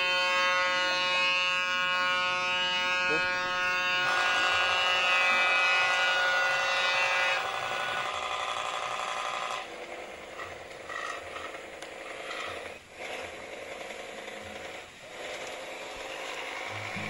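Toy pop-pop steam boat engine buzzing steadily with an even, pitched drone. The drone weakens about halfway through and gives way to a fainter, rougher rattle.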